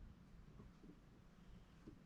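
Near silence: a faint low hum, with a couple of faint small ticks about a second in and near the end.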